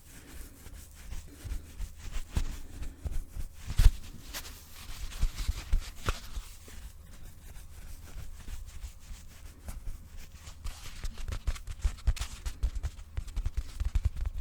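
A pillow handled close to a microphone: irregular soft thumps, taps and rubbing, coming faster and louder near the end.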